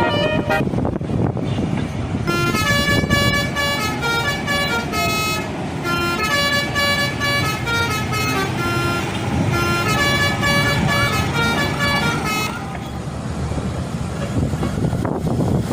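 Telolet multi-tone bus air horn playing a stepping tune of several notes, from about two seconds in until about twelve seconds in, over a steady low rumble of vehicle noise.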